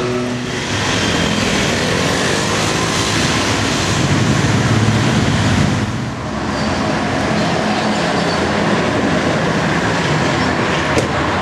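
Steady, loud city traffic and vehicle rumble, with a brief dip about halfway through.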